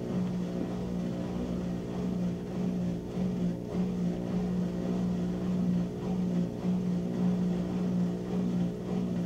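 Whirlpool WTW7300DW top-load washer running its spin with wet clothes in the basket: a steady motor hum.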